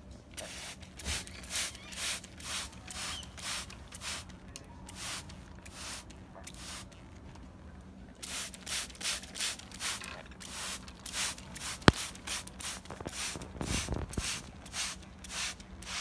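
Hand-pump spray bottle squirting water mist over and over, about two hissing squirts a second, with a short pause about halfway and a sharp click near the end.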